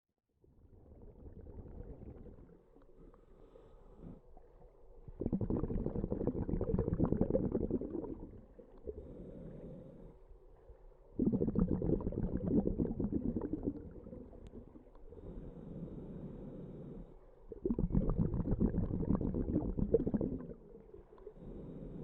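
Scuba diver breathing underwater through a regulator: three loud bubbling exhalations about six seconds apart, each lasting about three seconds, with quieter inhalations between. It begins suddenly after a moment of silence.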